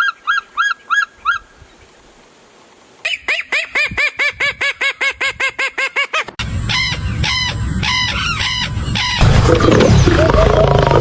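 Animal calls from several clips joined with abrupt cuts: a short run of about six repeated calls, a pause, then a fast series of about five calls a second, then more calls over a noisy background.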